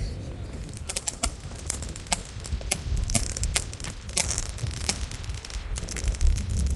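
Fireworks and firecrackers going off: rapid, irregular sharp cracks and pops, several a second, over a steady low rumble of wind on the microphone.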